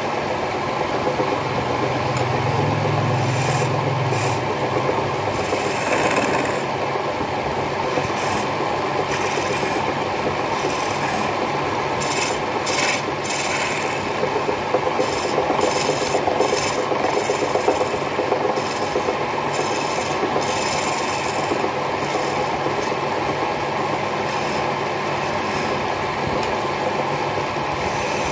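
A wood-turning chisel cutting a spinning wooden spindle on a lathe: a steady rough scraping as the shavings come off, growing harsher in short spells as the tool is worked along the piece.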